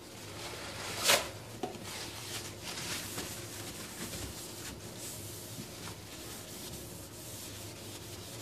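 Paper towel rubbing and wiping across a stainless-steel gas hob, drying it after washing so no water marks are left; a run of rubbing strokes with one sharper, louder stroke about a second in.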